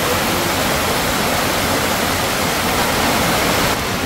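Heavy rain pouring down, a steady dense rush that turns a little quieter and duller near the end.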